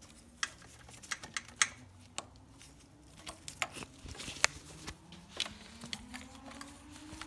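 Scattered light clicks and rattles of parts being handled as the coil packs are unplugged and pulled out. Over the second half, a passing motorbike's engine is faintly heard, rising steadily in pitch.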